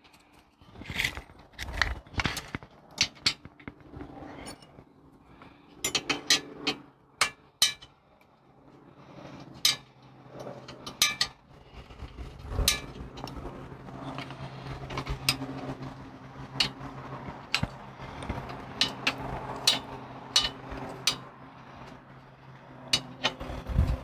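Hex key and bolts clinking against a Tektro mechanical disc brake caliper as its mounting bolts are threaded back in by hand: a scattered series of sharp metallic clicks and taps. A faint steady low hum runs underneath in the second half.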